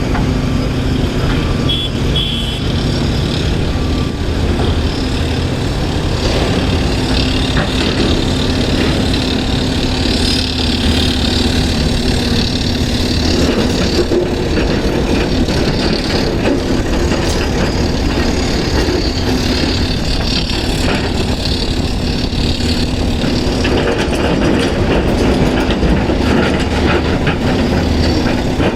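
Heavy earthmoving machinery's diesel engine running steadily, with scattered knocks and clatter mixed in.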